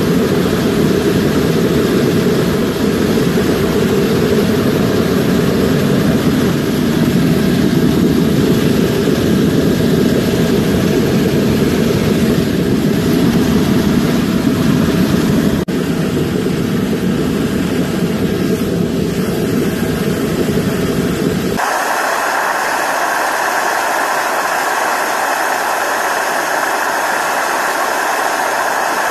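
Forge running hot with its blower forcing air in: a loud steady roar. About 21 seconds in it abruptly turns thinner, the low rumble dropping away and the whine of the blower motor coming forward.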